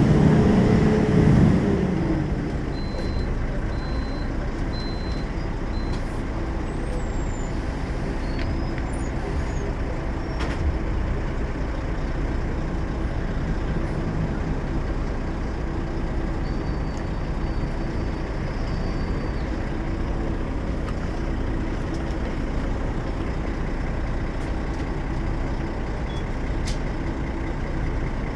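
Volvo B12M bus's 12-litre six-cylinder diesel engine, in its 340 hp version, running; its revs fall over the first two seconds, then it runs steadily.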